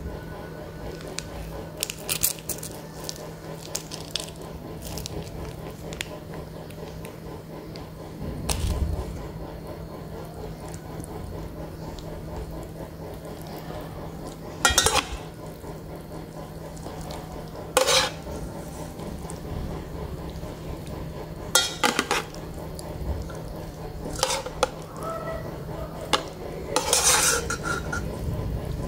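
Metal spoon stirring instant noodles and sauce in a coated cooking pot, scraping and clinking against the pot's sides and bottom, with sharper knocks every few seconds.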